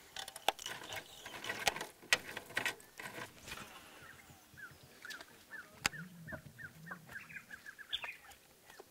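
A bird calling a series of short falling notes that come faster and faster, starting about halfway through. Before it, a run of sharp clicks and knocks.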